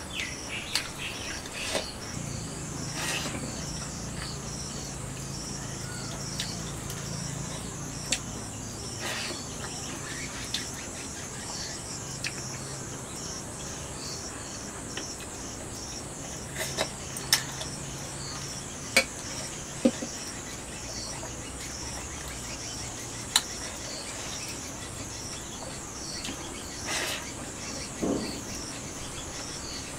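Steady high-pitched insect chirping, an even pulsing chorus, with scattered short sharp clicks and scrapes of fingers against a metal plate as rice is eaten by hand.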